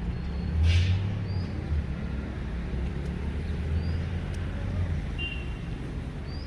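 Street traffic: a low engine rumble swells about half a second in, with a brief hiss, and eases off after about five seconds, as a vehicle passes. Short high rising chirps come every second or two.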